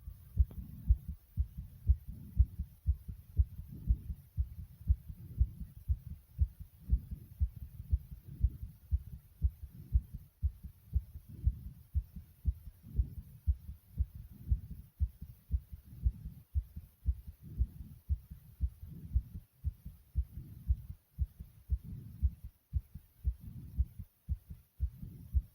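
A person's heartbeat beating fast and regularly as low, dull thumps, racing after a bout of jumping jacks.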